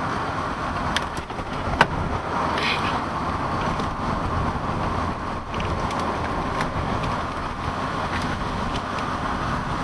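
Steady road and engine noise of a moving vehicle, with a few sharp clicks, the loudest a little under two seconds in.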